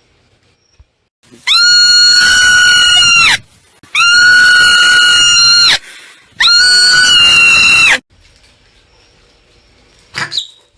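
Marmot giving three long, loud, high-pitched alarm screams of steady pitch, each close to two seconds with short gaps between, then a brief faint call near the end.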